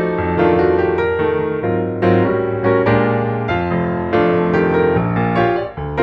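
Background piano music: a steady run of keyboard notes with chords beneath, the notes struck several times a second.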